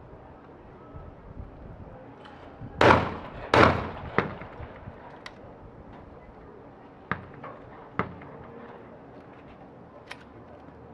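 Two 12-gauge over-under shotgun shots under a second apart, a skeet double, each trailing off briefly. A few lighter sharp clicks follow.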